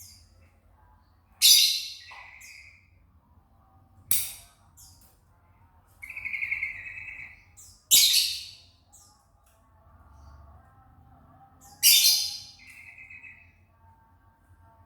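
White-eye (pleci) calling: four loud, sharp high-pitched calls a few seconds apart, most followed by a short buzzy trill, with another trill between them.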